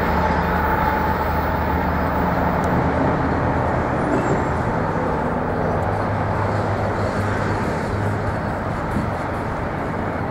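BNSF ES44AC diesel-electric locomotive working as the rear distributed power unit of an empty coal train, its V12 diesel engine drone and steady low hum mixed with rumbling wheels on rail. The sound slowly fades as the locomotive moves away.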